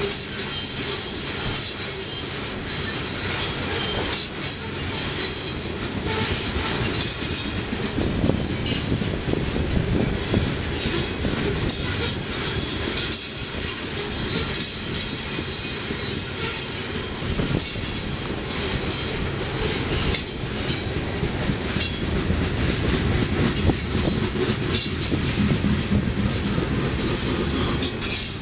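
Coal train's freight cars rolling past: a continuous rumble of steel wheels on rail, with repeated clicking as wheels cross rail joints and a high wheel squeal that comes and goes.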